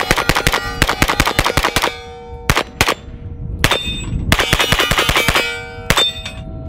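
Grand Power Stribog SP9A1 blowback 9mm carbine firing fast strings of shots with single shots in between, steel targets ringing as they are hit.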